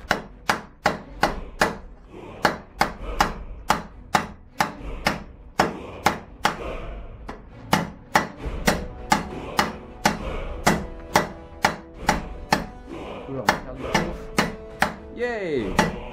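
Hand hammer striking hot steel on an anvil in a steady rhythm, about two to three blows a second, while drawing out the point of a forged fireplace poker; the anvil rings between blows in the second half.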